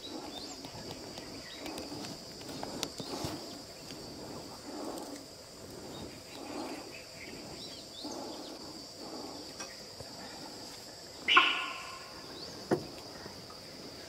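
Forest ambience: a steady high drone of insects, with soft low sounds recurring every second or two. About eleven seconds in there is a short, sharp call, the loudest sound, followed a little later by a single knock.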